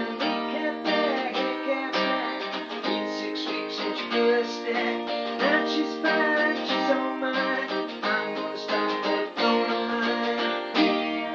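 Guitar strumming chords in an instrumental passage of a rock and roll song, with a last chord near the end left ringing and starting to fade.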